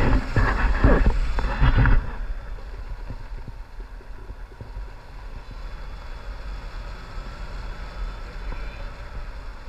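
Wind rushing over the camera microphone during a tandem paraglider flight, a heavy low rumble. It buffets harder for the first two seconds, then settles to a steadier, quieter rush.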